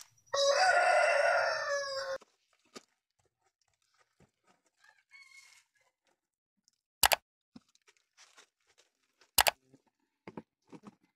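A rooster crows once, about half a second in, lasting nearly two seconds. Later come two sharp knocks, a couple of seconds apart.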